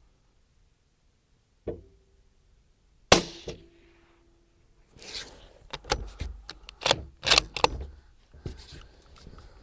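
Suppressed bolt-action .223 rifle firing one shot about three seconds in: a single sharp report with a short ring after it. About two seconds later comes a quick series of metallic clacks as the bolt is worked to eject the case and chamber the next round.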